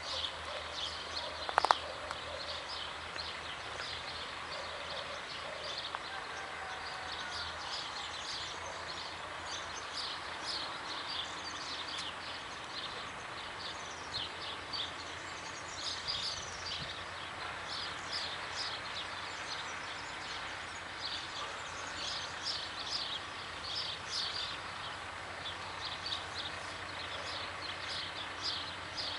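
Birds singing continuously in many short chirps over the faint, steady low drone of a distant M62 'Gagarin' diesel locomotive (two-stroke V12) as it approaches. One short, sharp sound stands out louder about two seconds in.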